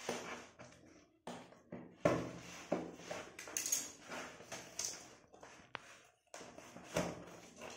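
Scissors cutting packing tape along the end of a cardboard box, with the cardboard scraping and rustling under the hands, in irregular strokes with a few sharp snips.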